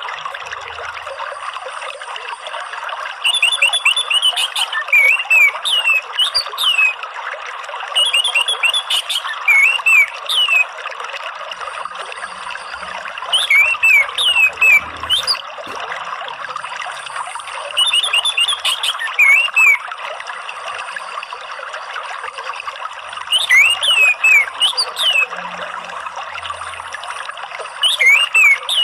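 Orange-headed thrush singing short bursts of quick, rising and falling whistled notes, about one phrase every five seconds, over a steady trickle of running water.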